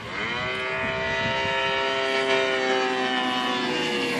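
The 50cc gas engine of a radio-controlled Edge aerobatic model plane in flight, its pitch dropping sharply in the first moments as it passes, then holding a steady high drone.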